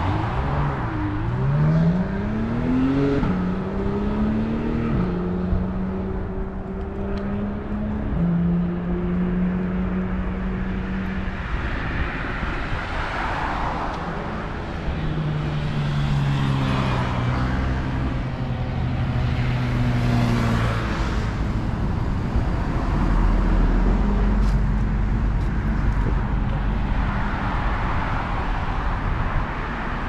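Road traffic passing close by: cars swell past one after another, with an engine rising in revs during the first few seconds and steady engine tones after that.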